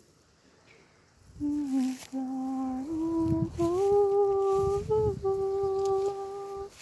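A woman humming a slow melody in long held notes, coming in about a second and a half in after a brief lull. Gusts of wind rumble on the microphone beneath the voice.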